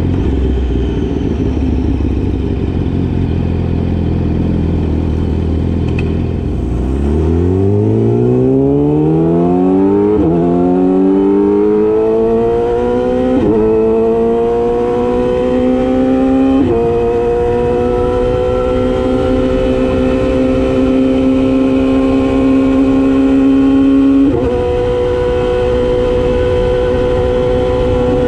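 Yamaha YZF-R6's inline-four engine runs low and steady for several seconds, then accelerates with its pitch climbing. It upshifts about every three seconds, three times, and then holds a steady high note, with one more shift near the end.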